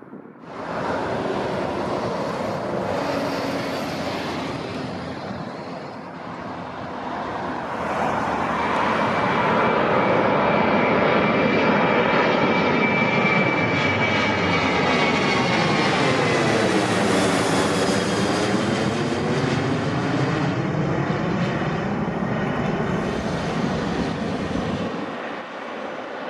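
Boeing 737-800 freighter's twin CFM56-7B jet engines at takeoff power as it climbs out overhead: steady jet noise that swells about eight seconds in, with a fan whine that drops in pitch and a sweeping, phasing quality as it passes overhead, easing off near the end.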